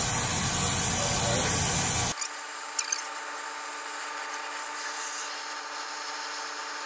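Brazing torch flame hissing steadily on copper refrigerant pipe, cut off abruptly about two seconds in. After that it is much quieter, with a few small clicks of handling.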